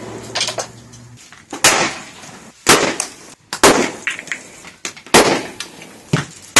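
Homemade airsoft/paintball simulation grenades going off: a string of sharp, loud bangs about a second apart, each with a short echoing tail, with smaller pops in between.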